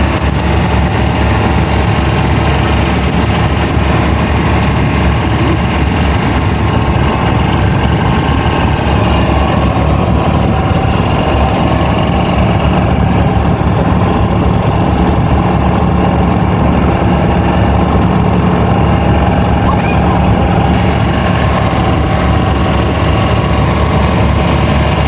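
A traditional wooden dhow's inboard engine running steadily under way: a loud, even, low drone.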